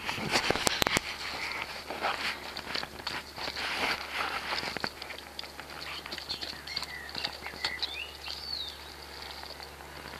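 Saint Bernard eating raw minced food from a stainless steel bowl and an offered hand: wet, irregular chomping and slurping with smacking clicks, sharpest in a cluster about a second in.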